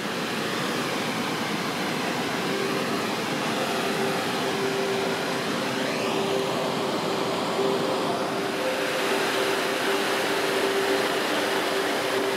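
Waterfall rushing, a steady, unbroken sound of falling white water pouring over rock, fading in at the start.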